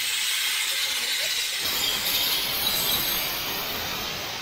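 Steam locomotive venting steam from its cylinder drain cocks, a loud steady hiss that grows fuller and deeper about a second and a half in.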